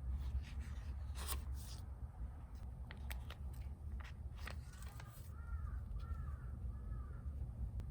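Paper pages of a Hobonichi planner being turned, with short crisp rustles every second or so. A crow caws about four times in a row around five seconds in, over a low steady hum.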